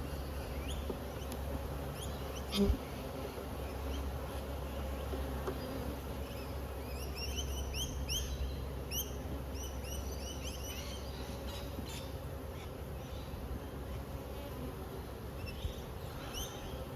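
Honeybees buzzing steadily around an open hive while its brood frames are handled, with a single knock about two and a half seconds in. From about seven seconds, a bird calls in quick repeated chirps.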